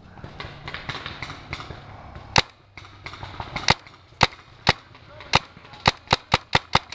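Paintball marker firing eleven sharp shots. They start about two and a half seconds in, spaced about half a second apart, and speed up to five or six a second near the end.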